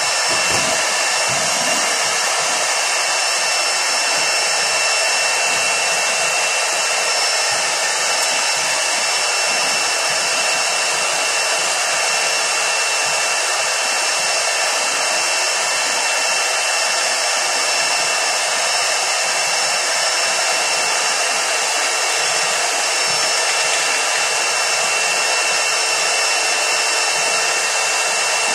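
Canister wet/dry shop vacuum running steadily: a constant rush of air with a high motor whine.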